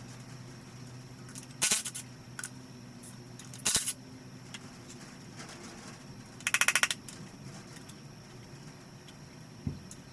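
Hand tools working on a bare engine block during piston removal: a few sharp metal clinks, and about two-thirds of the way through a quick, even run of ratchet clicks, over a steady low hum.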